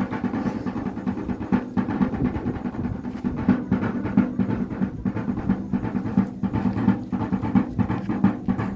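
Wayuu kasha drum beaten with sticks in a fast, unbroken rhythm of rapid strokes, its pitched ring sounding steadily under the beats.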